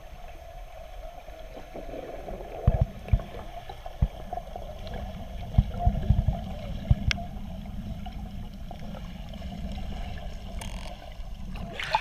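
Muffled underwater ambience of a submerged camera in moving spring water, a steady low wash broken by several dull low thumps. Just before the end, splashing as the camera breaks the surface.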